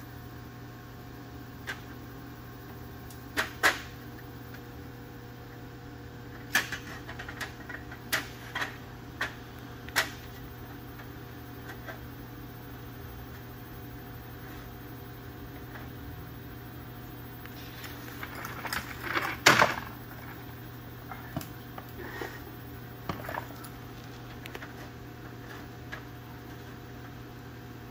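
Steady electrical hum with scattered sharp clicks and clinks of metal being handled: aluminum exhaust pipe and tools knocking on a steel welding cart. A quick run of louder knocks comes about two-thirds of the way through.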